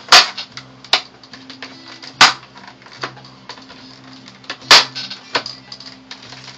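Plastic snap clips of an LG Flatron LCD monitor's case popping loose as the case is pried apart: three loud, sharp snaps about two seconds apart, with smaller clicks between them.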